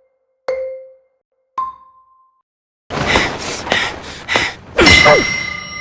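A countdown cue of mallet-like chimes: one low chime, then a higher closing chime. After a second of silence, a loud anime soundtrack starts with noisy sound effects, sharp hits and sliding vocal sounds. A steady high ringing tone comes in near the end.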